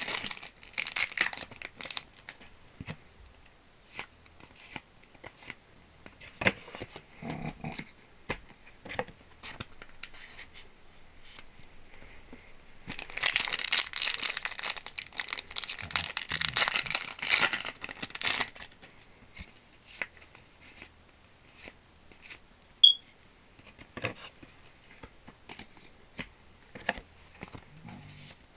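Foil wrappers of Yu-Gi-Oh Code of the Duelist booster packs crinkling and tearing as the packs are opened, with light clicks of cards being handled in between. About halfway through comes a longer stretch of loud crinkling lasting several seconds.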